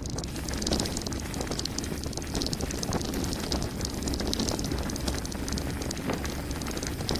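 Mountain bike descending a gravel forest road: a steady low rumble of wind and tyres, with constant small clicks and rattles from the gravel and the bike.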